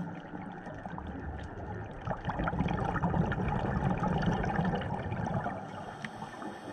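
Underwater water noise picked up by a diving camera: a steady gurgling hiss that swells for a few seconds in the middle.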